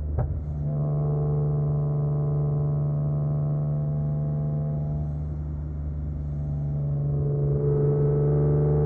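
BMW E46 M3's S54 straight-six with a Supersprint exhaust, running steadily under way with an even, deep drone. A brief sharp click comes about a quarter of a second in, and the engine note rises a little in pitch near the end.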